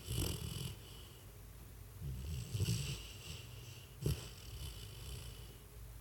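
Springer spaniel snoring in its sleep: two snores about two seconds apart, with a short click about four seconds in.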